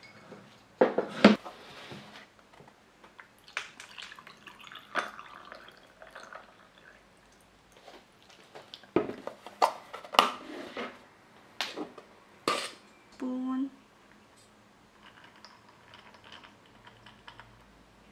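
Spoon and beaters clinking and scraping against a stainless-steel mixing bowl and a glass of iced milk while whipped coffee foam is scooped: a string of scattered clinks and knocks. A brief low tone sounds about two-thirds of the way through.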